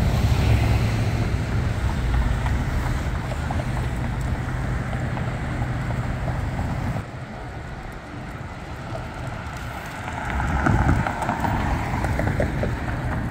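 Street traffic: a large SUV's engine and tyres close by, fading as it pulls away over the first several seconds, with wind rumbling on the microphone. Another vehicle passes near the end.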